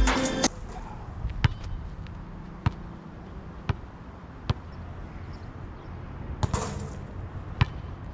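A basketball bouncing on an asphalt court: six sharp single bounces, roughly one a second. Background music cuts off about half a second in.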